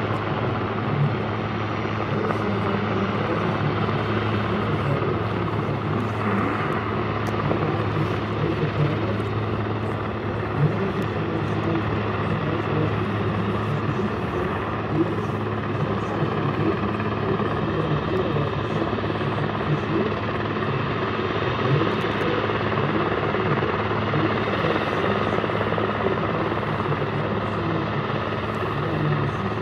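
Swiss Air Force Puma helicopter flying low along the mountainside, its rotor and turbines running steadily with a constant low hum.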